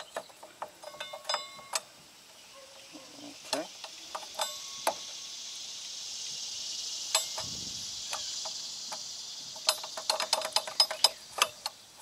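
Metal hand tools and bolts clinking and clicking as they are handled, ending in a quick run of clicks near the end. A steady high hiss swells up through the middle and fades out.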